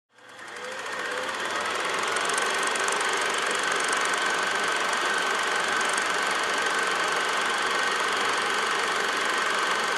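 Film projector running: a steady, fast mechanical clatter with a thin high whine, fading in over the first second.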